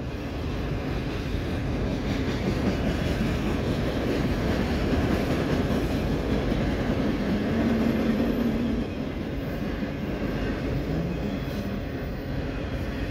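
Autorack freight cars rolling past on the rails: a steady rumble of wheels on track. A faint low hum joins for about two seconds past the middle.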